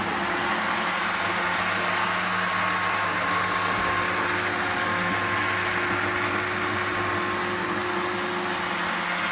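Braun hand-held immersion blender running steadily as it purées a pot of leek and potato soup.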